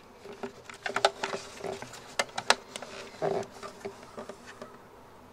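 Small metal clicks, ticks and clinks as a mountain bike's rear disc brake pads and caliper are handled, with a few short buzzing rattles among them.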